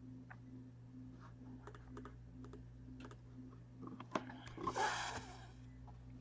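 Faint, scattered clicks of a computer keyboard being typed on, with a brief hiss about five seconds in.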